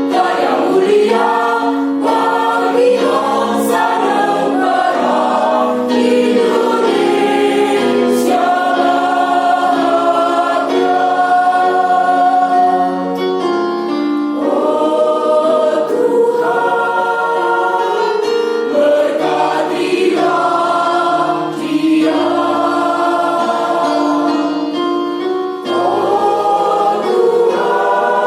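A choir singing in several-part harmony, holding long chords that change every second or two.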